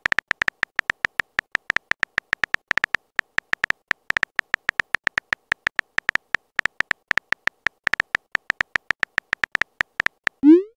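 Phone keyboard typing clicks from a texting-story app: rapid, slightly irregular taps, about five a second, each with a short high tone, pausing briefly a couple of times.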